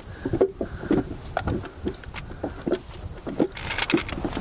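Hikers' boots stepping down a staircase of wooden plank treads, each step knocking out a short, hollow, pitched tone like a wooden xylophone. The irregular knocks come several a second as several people descend.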